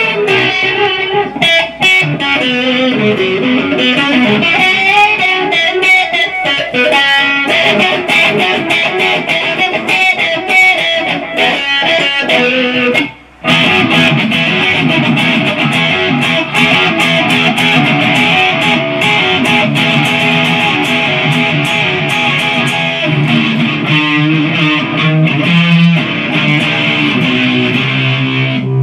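Modified Kazuki Baby 1 mini electric guitar played through a 50-watt EVH amp head and cabinet, with riffs and picked lines heard live off the amp through the camera's microphone. The playing stops for a moment about thirteen seconds in, then carries on.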